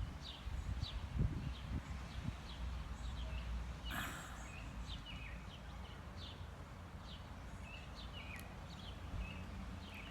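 Birds chirping over and over in short falling calls, with a low rumble of wind on the microphone that is strongest in the first couple of seconds. One short sharp sound stands out about four seconds in.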